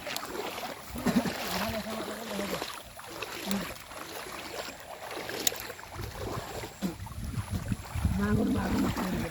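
River water splashing and sloshing irregularly, as from people wading and handling things in a stream, with brief voices about a second in and near the end.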